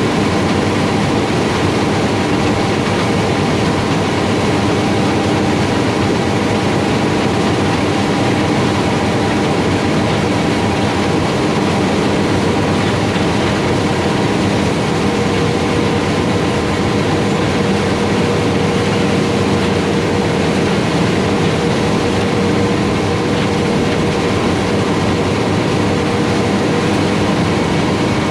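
Large farm harvest machinery running steadily at work: a continuous heavy mechanical drone with several held tones, without let-up or change.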